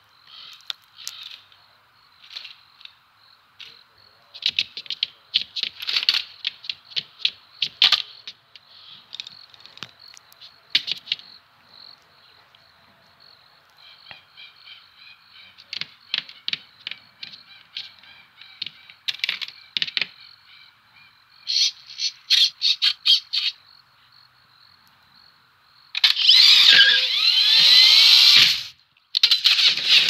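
Animated-film sound-effects track with no dialogue or music: scattered small clicks and taps, some in quick runs, over a faint steady high tone. About 26 seconds in comes a loud rushing burst with sweeping pitches lasting about three seconds, and another short loud burst just before the end.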